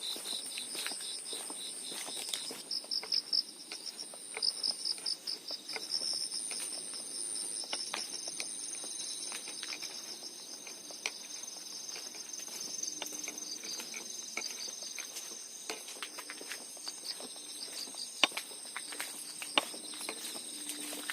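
Crickets and other insects chirping: several steady high trills overlap, with a pulsed chirping that comes and goes. Faint scattered clicks sound through it.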